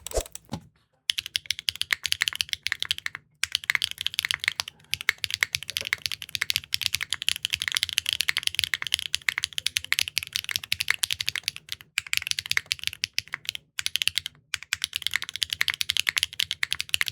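Fast typing on a Neo65 Core Plus custom mechanical keyboard, heard in two back-to-back takes of linear switches: a Keygeek M3 and an HMX linear. The keystrokes are a rapid, clacky stream of bottom-outs, with a few brief pauses.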